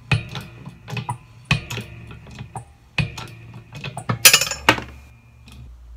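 Metal clicks and clinks from handling the old needle bearing, just pressed out of the Eaton M90 supercharger housing, and the steel press tooling. The knocks come about once a second, some ringing briefly, with a louder cluster of clinks about four seconds in.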